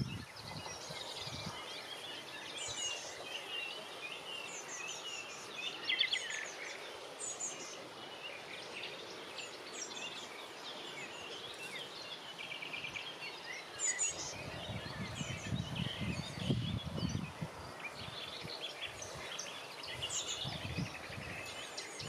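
Several small songbirds singing and calling together, a busy mix of high chirps and short trills over a steady hiss. Irregular low rumbling comes and goes in the second half.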